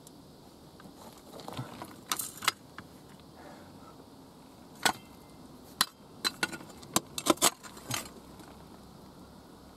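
Small metal pick chipping at rock and packed earth: a soft scrape, then irregular sharp clinks and knocks of metal on stone, several in quick succession in the second half.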